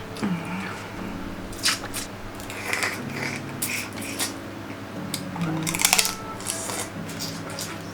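Close-miked mukbang eating sounds: chewing and squishing of sauced seafood boil, with sharp clicks and crunches from shellfish and utensils scattered through.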